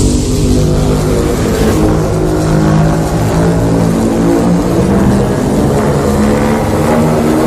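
Custom Godzilla monster sound effect: a loud, rough, pitched rumble that starts suddenly and holds steady without a break.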